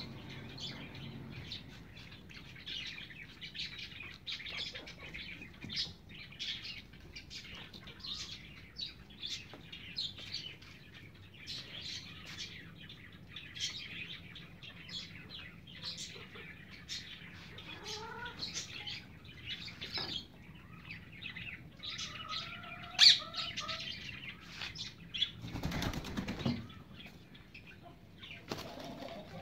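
Domestic hens pecking and scratching at thrown vegetable peels: a steady run of quick, irregular pecks and rustles, with a few soft bird calls in the second half and a louder rustle of movement near the end.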